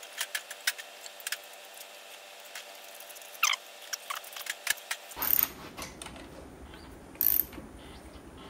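Ratchet wrench on the crankshaft pulley bolt clicking in irregular runs, with a few louder knocks, as a BMW N54 engine is turned over by hand to pull a new timing chain through.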